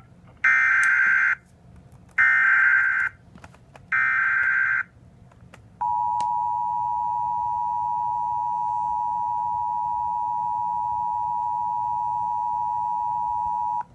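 Emergency Alert System header: three bursts of SAME digital data tones, about a second each. From about six seconds in comes the steady two-tone EAS attention signal, lasting about eight seconds. Together they herald a National Weather Service severe thunderstorm warning.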